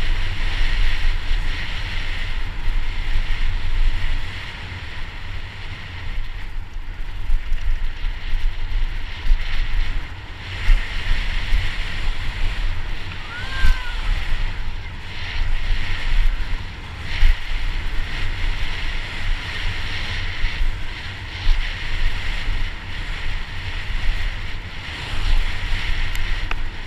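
Wind buffeting an action camera's microphone on a fast downhill mountain-bike descent, over the rushing noise of tyres on dry dirt. Frequent sharp knocks and rattles come as the bike hits bumps on the rough track.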